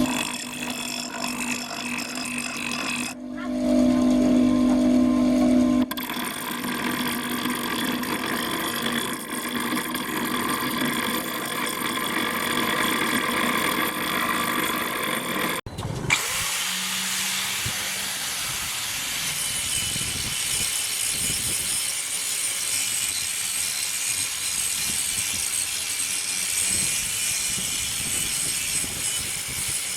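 Tool work on a rusty old axe head, cut together from several clips. First a motor-driven tool runs with a steady hum, then comes an abrasive, scraping hiss of rust and metal being worked, with the clips changing abruptly three times.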